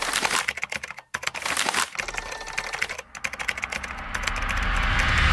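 Rapid computer-keyboard typing clicks in quick bursts with short pauses, then a rising whoosh that swells louder over the last second or so.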